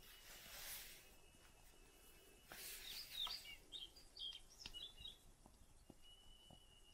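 Near-silent forest background with a quick run of faint short bird chirps about three to five seconds in. A few faint crackles come from twigs burning in a small folding wood stove.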